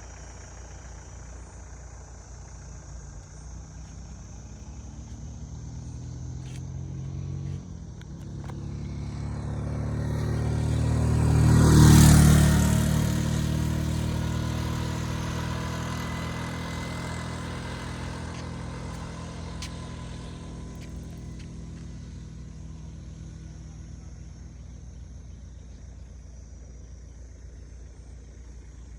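A motor vehicle approaches and passes by, growing louder to its peak about twelve seconds in, dropping slightly in pitch as it goes past, then fading slowly away.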